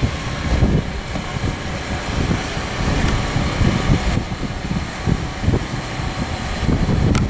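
Wind buffeting an outdoor microphone: a low, uneven rumble that rises and falls in gusts.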